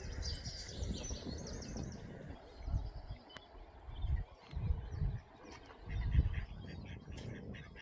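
Birds chirping and twittering outdoors, busiest in the first second or so, with scattered chirps later. Irregular bumps of low rumble on the microphone come and go, the loudest about six seconds in.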